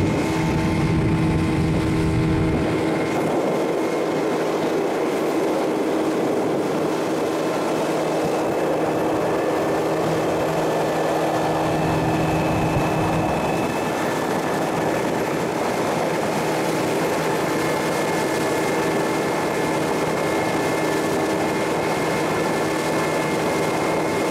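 Outboard motor boats running at speed on a river: a steady engine drone over the rush of water and wind.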